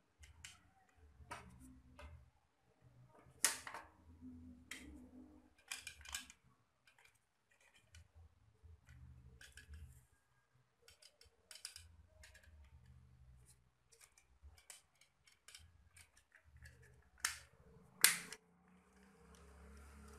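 Plastic clicks, taps and light rattles of a TV remote being put back together: the circuit board and rubber keypad handled and set into the plastic housing. Two sharp snaps near the end as the case halves are pressed shut.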